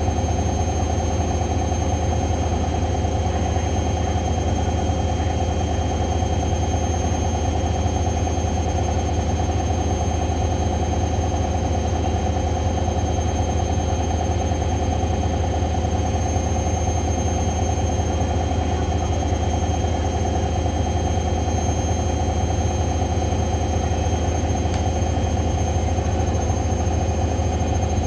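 Hoover washing machine in its spin cycle: the drum spins at a steady high speed with a constant hum and motor whine.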